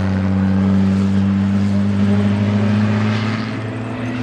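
Six-cylinder saloon race car's engine at full throttle going past, its note held steady then fading as it moves away. About three and a half seconds in, the next race car's engine comes in, its pitch rising.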